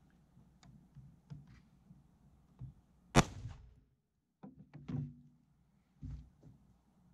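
A single sharp, loud bang about three seconds in that rings on briefly, followed by a cluster of lighter knocks and thuds and one more knock near the end.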